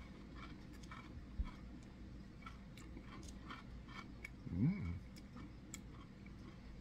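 A person chewing a mouthful of strawberry yogurt with crunchy Trix cereal pieces: a run of small crunching clicks. A soft bump comes about a second and a half in, and a short hummed "mm" rises and falls in pitch about two-thirds of the way through.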